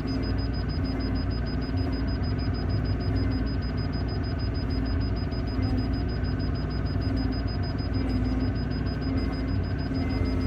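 Excavator's diesel engine running steadily while digging, with no change in load.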